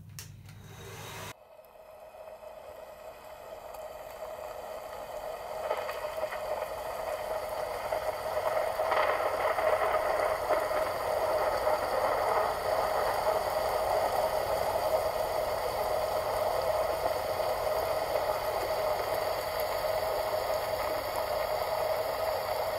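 Handheld hair dryer blowing: a steady motor whine over rushing air. It starts quietly about a second in, grows louder over the next several seconds, then holds steady.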